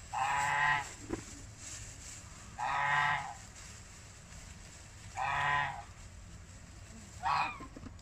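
Domestic geese honking: four drawn-out honks about two and a half seconds apart, the last one shorter.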